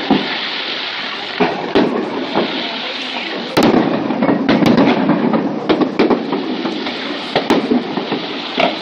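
Aerial fireworks bursting one after another over a steady crackle, with a dense run of bangs about three and a half seconds in and scattered single reports after.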